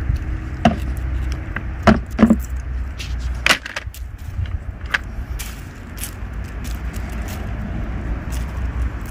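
Plastic drying trays knocking as they are handled: a few sharp, separate clacks, the loudest about two and three and a half seconds in, over a steady low rumble.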